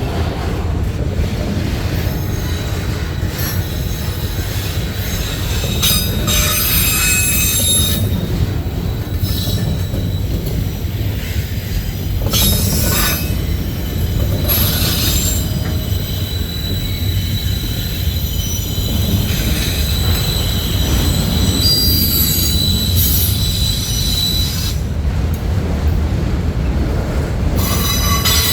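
Freight cars of a CSX manifest train rolling past with a steady low rumble, and wheels squealing high-pitched on and off several times.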